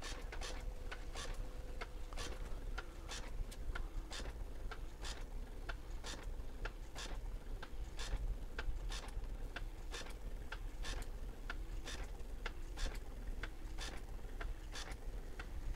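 A Radio Shack TRS-80 TP-10 thermal printer prints a program listing line by line, its mechanism making quiet clicks, about two or three a second. The clicks are sped up to double speed.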